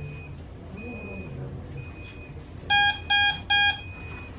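Hospital medical equipment alarm: a steady single-tone beep about once a second, with three louder, lower beeps in quick succession about two-thirds of the way through.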